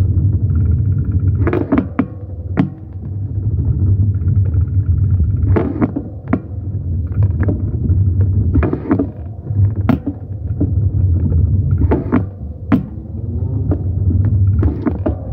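Steady low rumble with irregular sharp knocks and clicks over it, the whole swelling and easing every few seconds.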